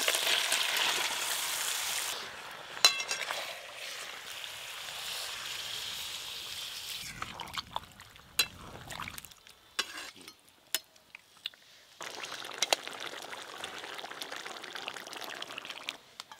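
Spice-coated green jackfruit chunks tipped into hot oil in a wok, sizzling loudly at first, then fading to a quieter fry. A metal spatula stirs the pieces, with scattered clinks and scrapes against the pan.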